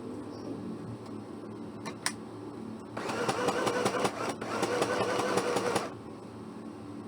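Small portable electric sewing machine sewing with a twin needle: a click about two seconds in, then the motor runs for about three seconds with a brief pause in the middle, and stops.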